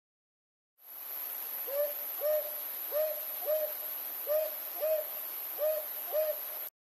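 Owl hooting: four pairs of short, hooked hoots, the two in each pair about half a second apart, over a steady hiss that starts and stops abruptly.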